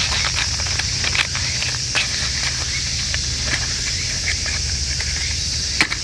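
Light clicks and rustles of a cardboard matchbox being handled and a wooden match drawn out, then a single sharp strike of the match against the box near the end, over a steady high hiss.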